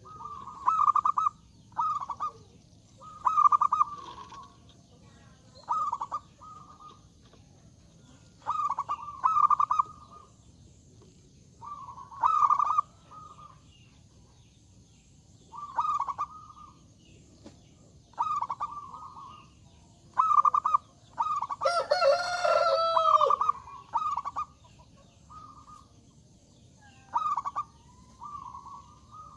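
Zebra dove (perkutut) cooing in short repeated phrases, each a quick run of notes, coming every second or two. About 22 seconds in, a louder, drawn-out call from another bird cuts in over them.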